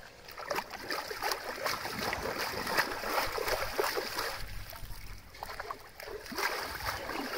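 Hands splashing and sloshing in shallow, muddy water while digging in the mud bottom for shellfish, irregular splashes with a short lull about five seconds in.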